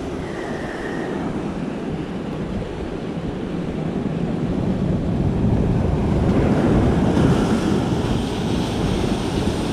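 Storm surf breaking against rocks, with wind buffeting the microphone. The surf swells louder from about halfway through, peaking a second or two before the end.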